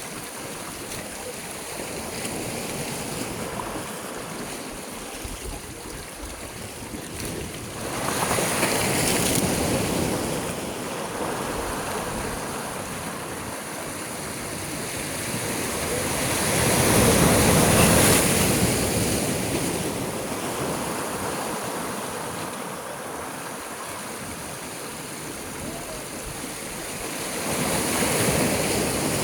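Sea waves breaking and washing in, the surf rising and falling in three swells: a sudden rise about 8 seconds in, the loudest wave about 18 seconds in, and another near the end.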